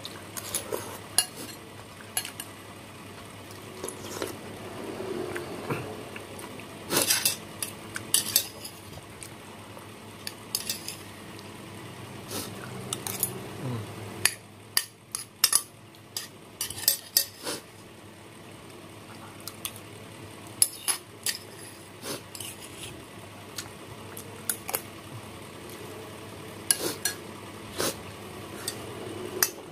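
A metal spoon clinking and scraping against a glass bowl as someone eats soup. The clinks are sharp and irregular, some coming in quick clusters of two or three.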